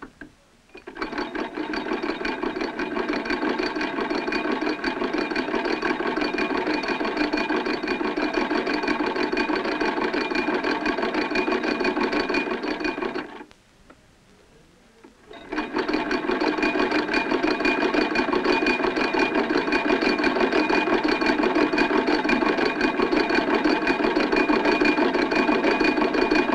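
Small hand-cranked sewing machine running as its handwheel is turned, stitching with a fast, even mechanical rattle. It stops for about two seconds near the middle, then starts again.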